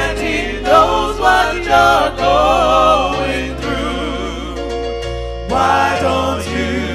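Gospel song: sung vocals with vibrato over sustained bass notes that change every second or two.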